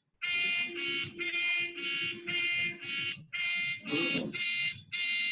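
Alarm tone from a phone running a homemade Android alarm clock app, going off at the time just set: a repeating electronic tone in short pulses, about two a second. It is the sign that the app's set alarm fired as intended.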